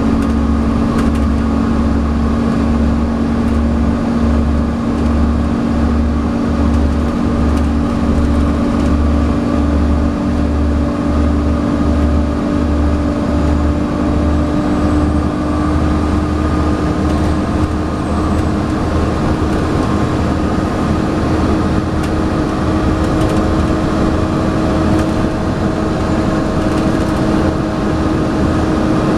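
Volvo B7TL double-decker bus under way, heard from on board: the engine runs steadily under a whining tone that slowly rises in pitch. This is the vacuum-cleaner-like 'hoover' whine of the cooling fan. A low throb pulses a little more than once a second through the first half, then evens out.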